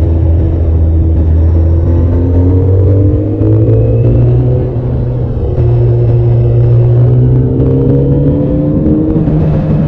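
Honda sport motorcycle engine heard from the rider's seat, pulling along the road with its revs climbing. There is a short dip about five seconds in, after which the note picks up again and keeps rising.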